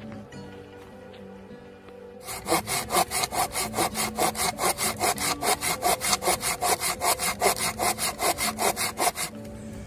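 Curved hand pruning saw cutting through a dry wooden pole in quick, even strokes. The sawing starts about two seconds in and stops shortly before the end.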